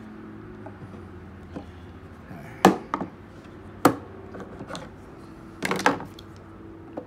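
A clamp being fitted and tightened by hand on a hatch plate set into a model-airplane wing: a few sharp clicks and knocks, single ones between about two and four seconds in and a quick cluster near six seconds.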